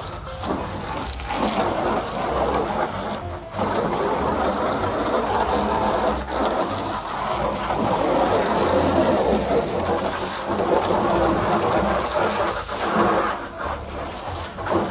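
Garden hose spraying water into a plastic tub to rinse it out: a steady hiss and spatter of water, broken off briefly twice.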